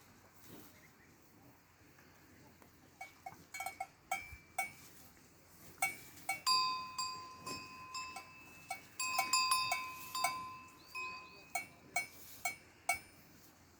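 Cowbells clanking irregularly as the cows move: a few scattered strokes at first, then a busy run of ringing clanks in the middle, thinning out again toward the end.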